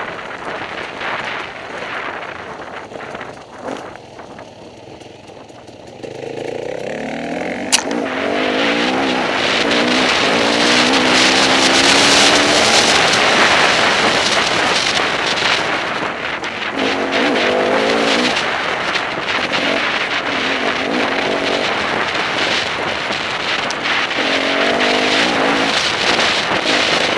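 Enduro motorcycle engine, quieter for the first few seconds, then accelerating about six seconds in and running hard, its pitch climbing again twice, under heavy wind rush on the microphone. A single sharp knock about eight seconds in.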